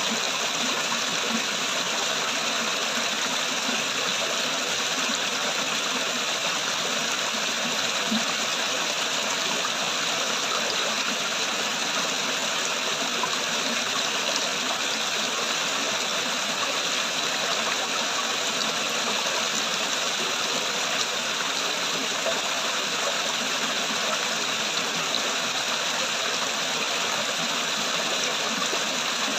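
Water flowing and falling, a steady, even rush of running water that holds at the same level throughout.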